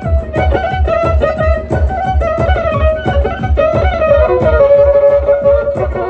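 Black Sea kemençe playing a fast, ornamented horon dance tune over a quick, steady drum beat, amplified through a sound system.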